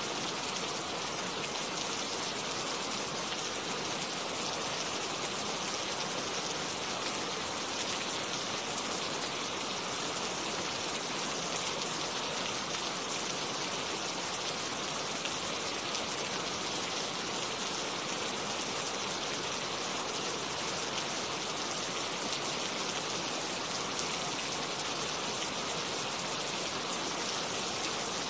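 Steady rain falling, an even hiss of many drops that holds at one level throughout.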